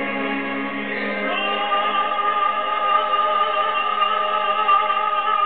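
Baritone soloist and mixed chorus singing a zarzuela number in operatic style. They move to a new chord about a second in and hold it, with a high held note on top.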